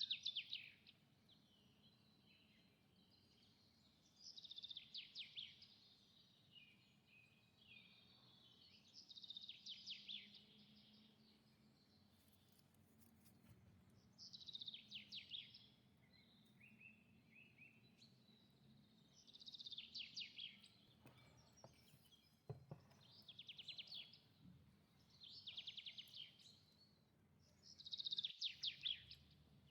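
A small bird chirping in short high trills, one burst about every four to five seconds, over faint room hum.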